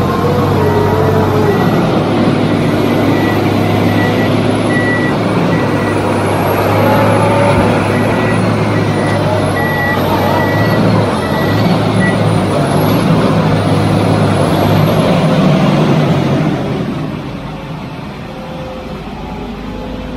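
Bauer BG 26 hydraulic piling rig running loud at its bore, diesel engine and hydraulics working as the soil-clogged auger is handled, with a wavering high whine over it. An intermittent high warning beep sounds through the first part, and the machine noise drops about three-quarters of the way through.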